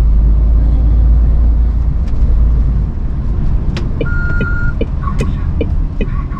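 Lorry's diesel engine rumbling heard from inside the cab, easing off about three seconds in. From about four seconds a regular ticking, about two and a half a second, starts up, with a short beep as it begins.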